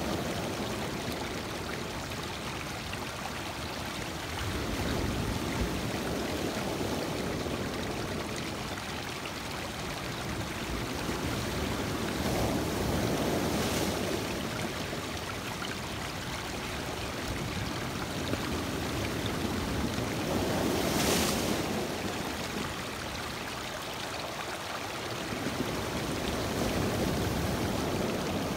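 Lake waves breaking on a rocky shore and washing in over the stones, a steady rush that swells about every seven or eight seconds as each set of waves comes in.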